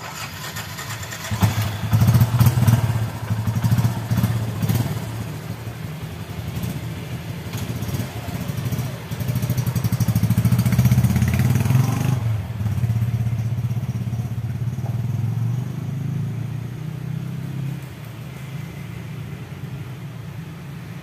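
Yamaha Byson's single-cylinder four-stroke engine revving hard about a second in and running loud as the motorcycle pulls away, then dropping off and fading as it rides away. The carburettor is set rich: the popping in the exhaust is gone, but the engine sounds over-fuelled.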